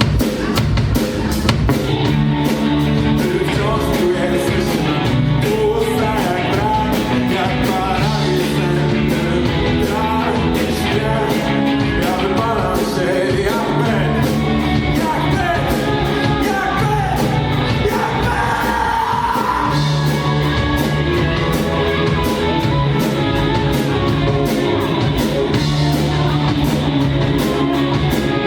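A live rock band playing: drum kit keeping a steady beat under electric guitars and bass, with singing. About two-thirds of the way through a note slides upward in pitch.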